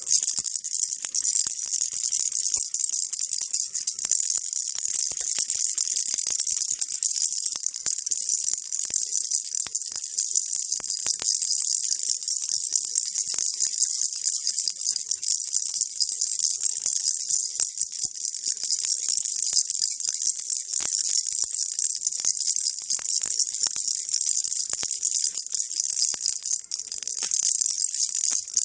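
Baby rattle shaken continuously, a steady dense high jingling without pauses, used as white noise.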